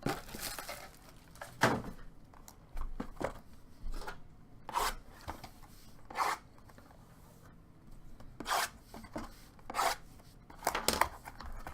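Short, irregular scrapes and rustles of cardboard and plastic wrap as sealed trading-card boxes are handled and opened, about a dozen separate strokes with pauses between them.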